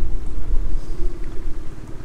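Small boat's outboard motor running steadily under way, a low pulsing hum, with wind rumbling on the microphone.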